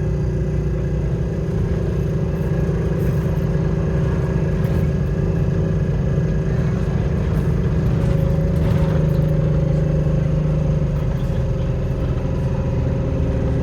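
A bus droning steadily while under way, heard from inside: a loud, even hum with several fixed tones, the horrible droning sound.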